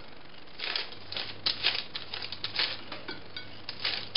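A brush spreading melted beeswax onto fabric laid on baking paper: a run of short brushing strokes with papery rustling, about two or three a second.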